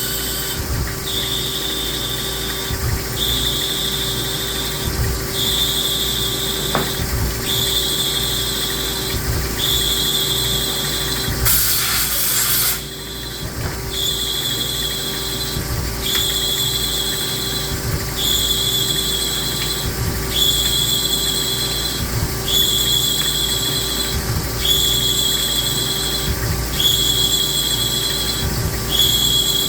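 CNC lathe cutting threads in an acrylic goose call barrel: the tool squeals in repeated passes about every two seconds, each about a second and a half long, over a steady machine hum. A brief hiss breaks in about twelve seconds in.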